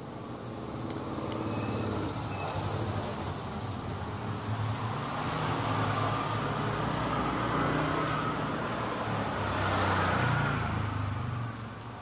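A motor vehicle passing by on the street, its engine and tyre noise rising over several seconds, loudest in the second half, then dropping away shortly before the end. A steady high insect buzz sits underneath.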